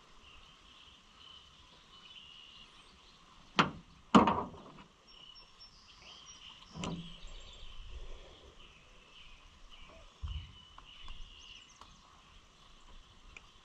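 A few sharp knocks: two close together, about half a second apart, then a smaller clunk a few seconds later, over faint steady chirping from birds or insects.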